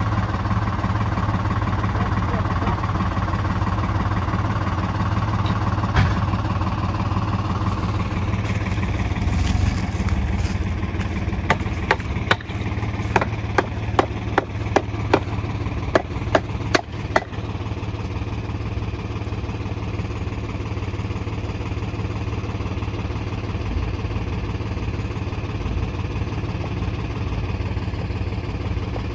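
Tractor diesel engine idling steadily. In the middle comes a run of about a dozen sharp metal clanks from the farm trailer's tailgate fittings being worked by hand.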